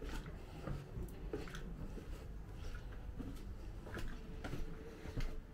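Footsteps on the brick paving of a narrow stone passage: soft taps and scuffs at a walking pace, over a low rumble.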